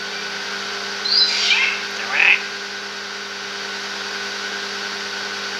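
Racket-tailed treepie calling once, about a second in: a high note that slides down, followed by a shorter, lower note. A steady hum runs underneath.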